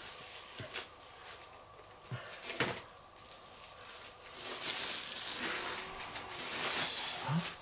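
Clear plastic film crinkling and rustling as it is pulled off a wrapped raw pork neck by hand, with scattered sharp crackles at first and a fuller, steadier rustle in the second half.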